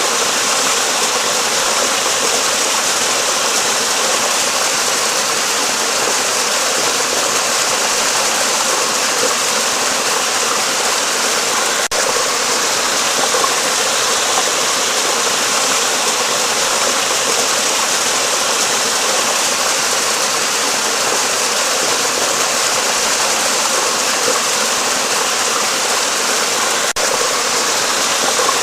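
Water rushing steadily under a bridge: an even, hissing rush with no change in level, broken only by two momentary dips where the footage is joined.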